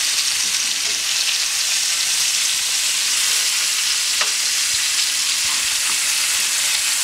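Venison backstrap searing in hot oil in a cast-iron skillet: a steady sizzle, with light touches of metal tongs as the pieces are turned.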